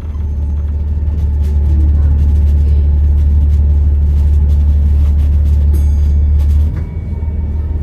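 Volvo B7RLE bus's diesel engine pulling with a loud, steady low drone and a faint steady whine from the turbo. The drone drops off suddenly near the end.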